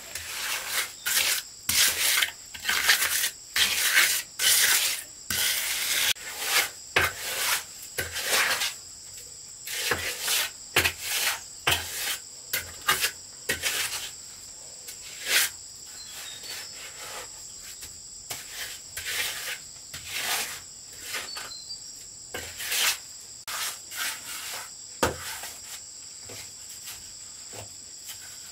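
Irregular rasping scrapes and taps of hand-tool work at a building site, dense for the first several seconds and then more spaced out, over a steady high drone of insects.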